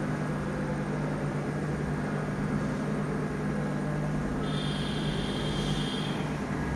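Steady low hum and room noise with no voices. A faint high-pitched tone comes in about four and a half seconds in and lasts about a second and a half.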